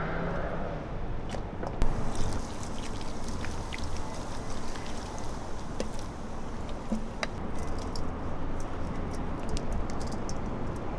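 Handling noises from seasoning raw ribs in a stainless steel bowl: a run of small clicks and ticks over a steady background, with a louder knock about two seconds in.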